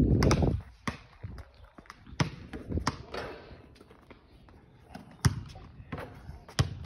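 A basketball thumping on an asphalt driveway as it is bounced, caught and passed during free-throw shooting. There are several sharp, separate impacts about a second apart, and the two loudest come in the second half.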